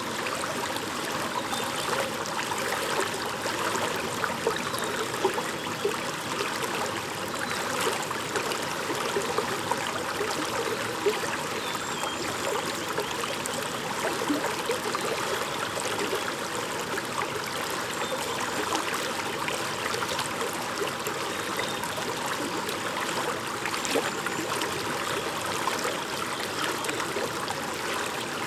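A shallow brook babbling steadily, water trickling and splashing over stones with many small splashes throughout.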